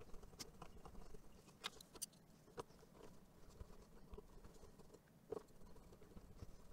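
Faint scattered clicks and taps of small plastic clamping fixtures and magnets being set down and shifted on a CNC carving raft, a few sharper clicks around two seconds in and one more near the end.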